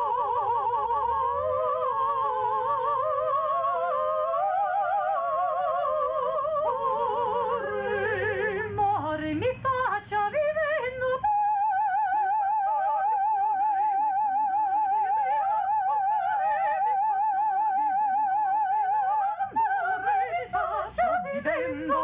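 Two women singing unaccompanied in an operatic style with heavy vibrato, at first together in two parts. About halfway through, one voice holds a single long high note for several seconds before the singing breaks up near the end.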